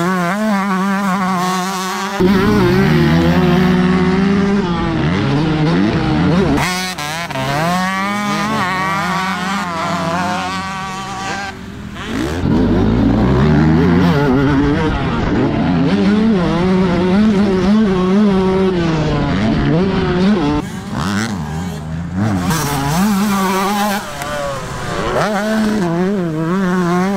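Motocross bike engines revving hard and easing off as riders accelerate out of corners and shift gears, the pitch climbing and falling over and over. The sound changes abruptly several times.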